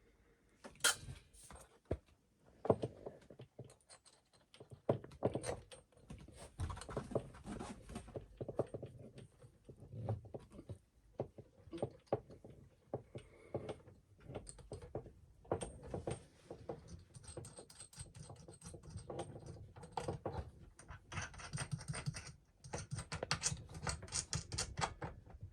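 Clicks, scrapes and rattles of a mixer tap's under-bench fixing as it is fitted and screwed up hand tight. The clicking grows busier near the end.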